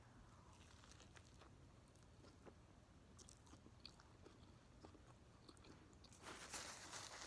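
Faint close-up chewing with small wet mouth clicks, and a louder crunchy bite or rustle about six seconds in.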